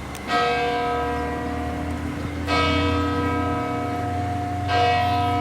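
Chartres Cathedral church bell ringing, struck three times about two seconds apart, each stroke ringing on over a low hum. Its tone is dark and austere, with distorted-sounding overtones.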